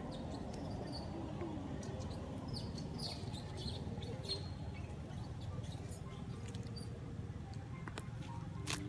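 Baby monkey giving a few faint, short, high squeaks in the first half, with scattered rustles and clicks in the leaf litter, over a steady low rumble.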